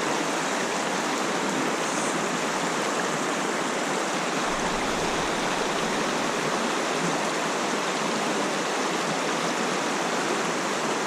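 Mountain stream water rushing steadily through a run, an even wash of noise.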